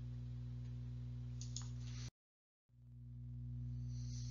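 A steady low electrical hum in the recording. About two seconds in it cuts off to dead silence for half a second, then swells back in.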